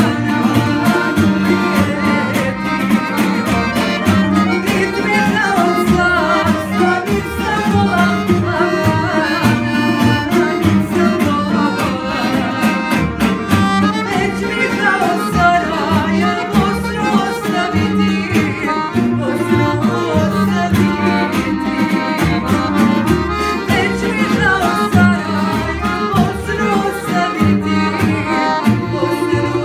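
A woman singing a sevdah song live, accompanied by a tamburica band: plucked tamburica and acoustic guitar with a double bass underneath.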